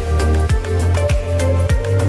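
Background music with a steady beat: a deep drum hit about twice a second under a held bass and melody.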